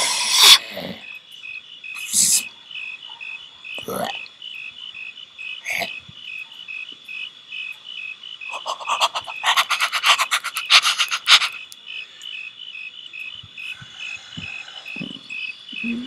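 Crickets chirping steadily, about four pulses a second. A dense run of scratchy noise lasts about three seconds in the middle, with a few soft knocks around it.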